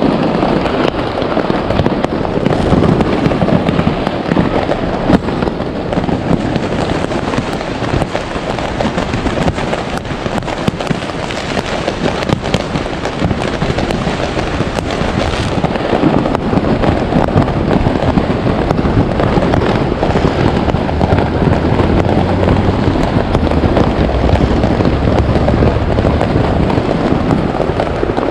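Fireworks going off in a dense barrage: many bangs and crackles overlapping without a break.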